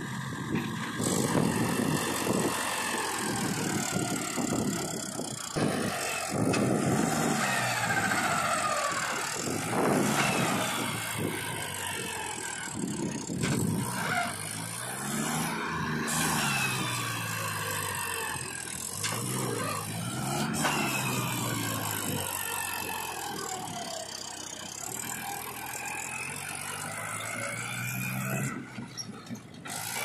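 Mahindra tractor's diesel engine labouring under load as it hauls a loaded trailer through mud. The revs climb and fall again and again, with black smoke from the exhaust as it strains.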